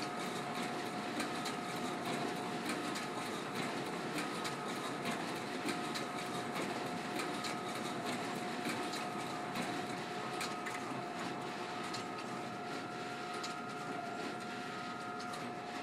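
Ricoh C751EX colour production printer running a long print job at full speed, sheets feeding through in quick succession: a steady whine with frequent clicks over a continuous mechanical rumble.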